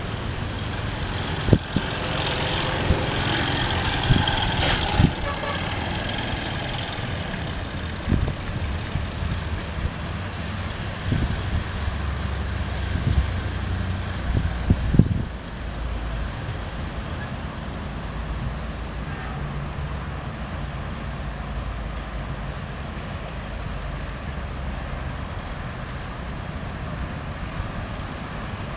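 Steady low rumble of motor vehicles with wind, broken by a few sharp knocks in the first half and swelling louder around twelve to fifteen seconds in, then settling to a steadier, lower rumble.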